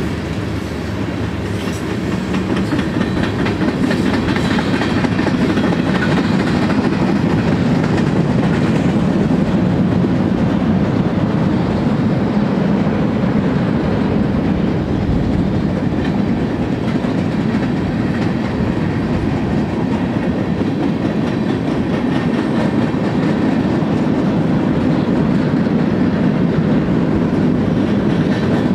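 Freight cars of a BNSF manifest train rolling past: a steady rumble of steel wheels on the rails with the clickety-clack of wheels over rail joints, swelling slightly in the first few seconds and then holding steady.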